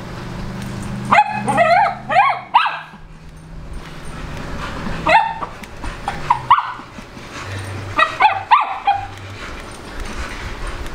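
A dog giving short, high yips and whines in three bouts: a quick run of four, then two, then three more near the end.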